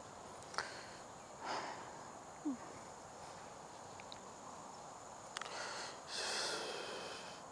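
Faint steady chirring of insects, with a few faint clicks and rustles and a soft burst of noise lasting about a second near the end.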